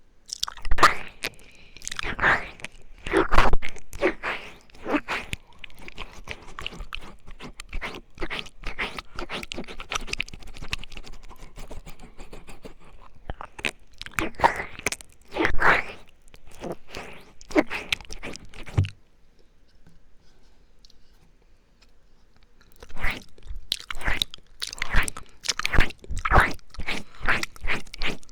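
Close-miked wet mouth sounds of ear-eating ASMR: rapid wet clicks, smacks and licking in dense bursts. They pause for about three seconds a little after the middle, then start again.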